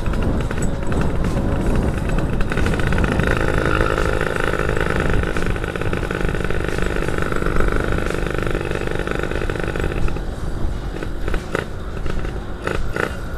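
Yamaha F1ZR two-stroke 110 cc engine running while the bike is ridden, with wind rumbling on the microphone. The engine holds a steady pitch for several seconds, then eases off about ten seconds in.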